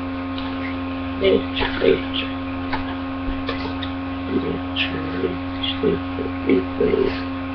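Steady electrical mains hum, with a few short soft knocks and rustles as a fingerboard ramp is handled.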